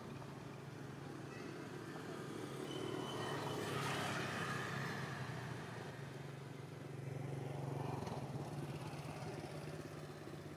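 Steady low hum of a motor vehicle engine in the background, swelling louder twice as it comes closer and then fades.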